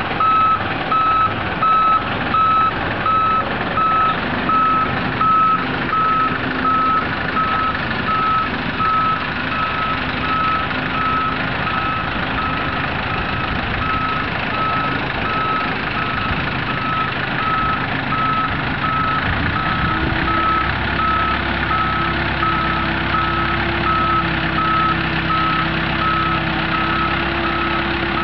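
Mobile boat hoist (travel lift) on the move, its motion alarm sounding a steady train of single-pitch beeps over its running engine. About twenty seconds in, the engine note steps up and holds steady as the hoist drives past.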